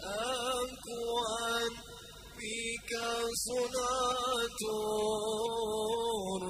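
A man's voice singing a slow, ornamented line of Arabic sholawat devotional song, the pitch sliding and wavering between short pauses, with no drums beneath it.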